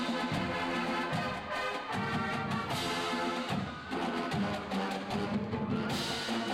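College marching band playing as it marches: brass (trumpets and sousaphones) carrying the tune over a drum line of snare and bass drums keeping a steady beat.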